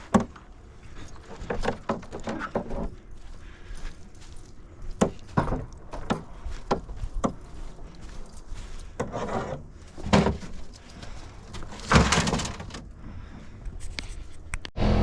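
Scattered knocks, clunks and rattles of junk and scrap being handled, picked up and set down, at irregular intervals with a few louder bangs; the sound stops abruptly near the end.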